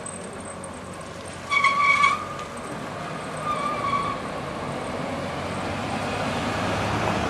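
Car driving slowly over cobblestones, its tyre and engine rumble growing louder as it comes up and passes close by. Two short high tones sound near the start, the first louder than the second.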